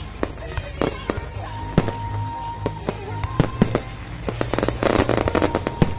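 Fireworks bursting: repeated sharp pops and bangs, with a dense run of rapid crackling from about four and a half seconds in until near the end, over background music with held notes.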